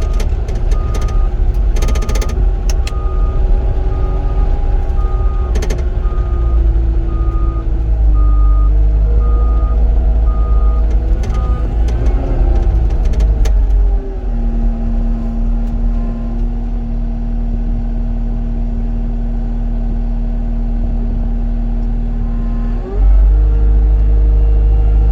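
Cat 259D compact track loader's diesel engine running as it backs up, its backup alarm beeping steadily for the first eleven seconds or so. About fourteen seconds in the engine settles to a lower steady speed, then throttles back up near the end.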